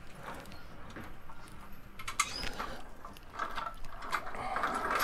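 Motorcycle lift jack being shifted into position on a concrete floor: light metal clicks and short squeaks from its frame, casters and handle, starting about two seconds in.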